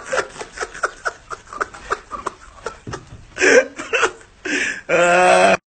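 A person's voice making a rapid string of short hiccup-like sounds, followed by a few loud voiced calls near the end that cut off abruptly.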